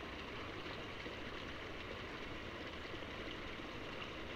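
Steady splashing and rushing of a jet of water pouring into a concrete trout pond.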